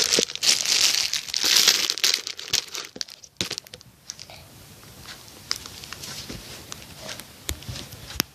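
Packaging crinkling as it is handled, loud for the first two seconds, then softer crinkles and small clicks.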